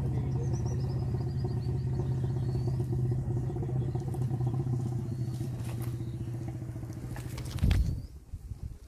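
Vehicle engine idling steadily, then switched off with a shudder nearly eight seconds in.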